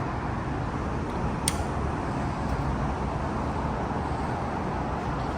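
Elevator car in motion: a steady rumble of the hoist motor and the travelling car, with a single sharp click about a second and a half in.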